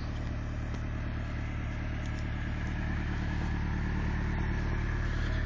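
Pickup truck engine idling steadily as it warms up after a cold start in 7-degree weather, the exhaust note growing a little louder toward the end.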